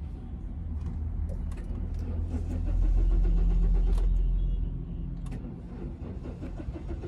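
Car engine being cranked on the starter without catching, a low fluttering rumble that swells louder about three seconds in and then falls back. The engine cranks but will not start.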